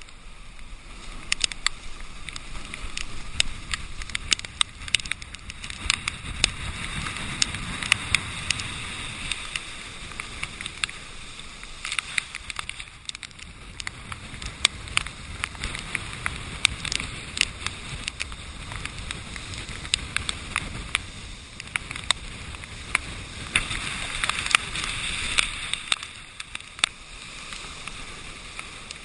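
Hurricane storm surf crashing and churning against a rocky sea wall, heard muffled through a GoPro's waterproof housing and swelling louder several times as waves break. Many sharp, irregular ticks of spray and rain drops hit the camera housing.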